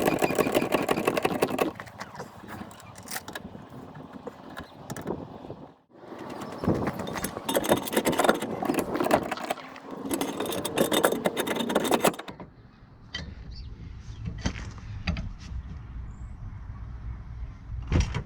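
Metal clicks, rattles and scrapes of hand tools on a car's wheel bolts and jack as a wheel is taken off, in several abruptly cut stretches.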